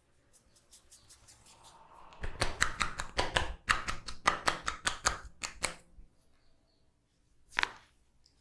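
Hands tapping out a fast percussive massage, about five sharp slaps a second for roughly four seconds, then one single strike a little later.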